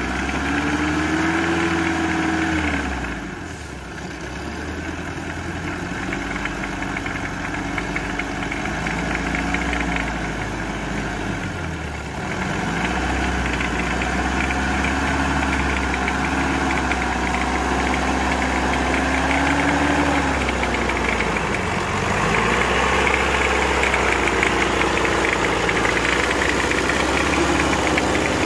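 Diesel engine of a homemade logging truck running with a knocking note, its speed rising and falling several times. It drops back briefly about 3 s, 12 s and 21 s in.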